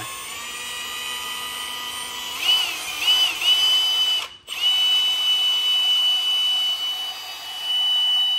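Cordless drill boring through a thin metal strap: a steady high motor whine that rises in pitch about two seconds in, pulses three times, cuts out for a moment around the middle, then runs steadily again.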